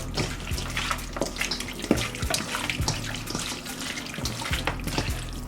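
Hands mixing oiled, seasoned raw chicken wings in a bowl: irregular wet smacks and slaps as the meat is turned and rubbed, over a low steady hum.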